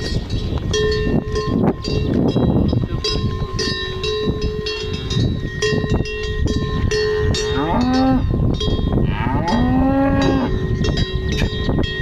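Cowbells on grazing cattle clanking and ringing over and over, and a cow mooing twice in the latter half, the second moo longer.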